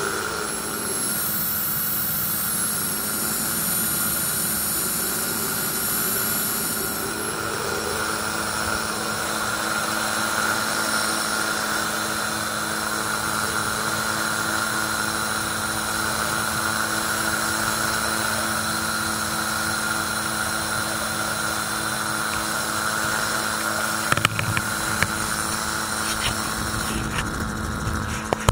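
Magni M16 autogyro's engine and pusher propeller running at a steady drone in flight, mixed with wind rush in the open cockpit. A few sharp clicks near the end.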